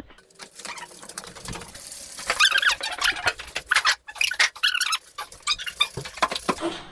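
Bare rolling chassis of a Land Rover Discovery 4, engine still in, being pushed by hand, with scattered clicks and knocks. High squeaks come in two spells, about two and a half seconds in and again near five seconds.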